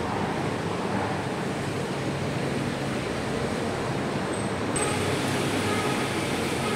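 Steady rumble and hiss of vehicle traffic in an underground car park, with no distinct single events.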